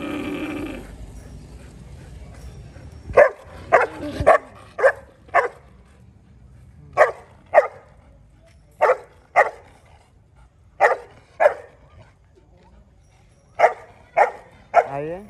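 Dogs begging for food: a whining yowl trails off in the first second, then a dog barks sharply in short bursts of two or three, about every two seconds, ending on a rising yelp.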